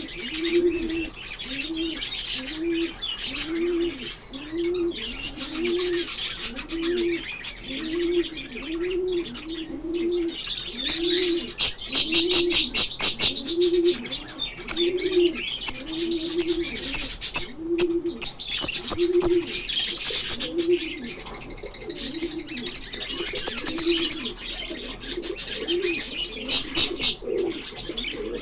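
Birds calling together: a dense, high chirping twitter over a steady series of low, arched notes repeated about once a second.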